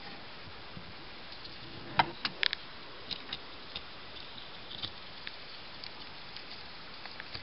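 A peanut shell cracking: one sharp crack about two seconds in, a few more in quick succession, then scattered small clicks and crunches, over a steady hiss.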